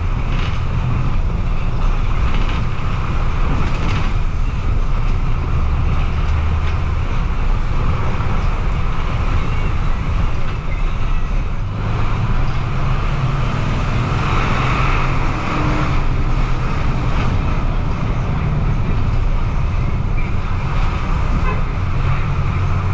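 Bus engine running and tyre and road noise heard from inside the moving bus, a steady loud rumble whose low engine note shifts a few times as the bus changes speed.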